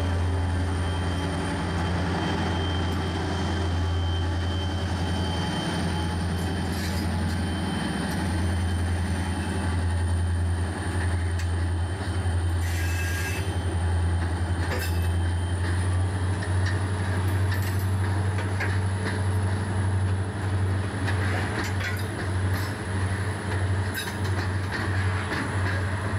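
Diesel-electric freight locomotives running with a steady low engine drone as the train passes, with a thin high squeal from the wheels.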